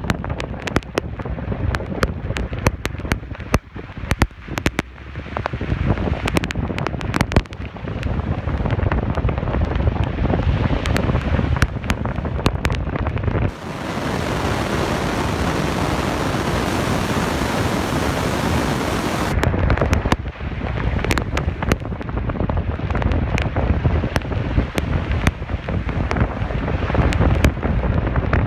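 Hail and rain pelting a car's roof and windows, heard from inside the moving car: a dense, irregular patter of sharp hits over a low rumble. About halfway through, the hits give way to a steady loud hiss for about six seconds before the patter returns.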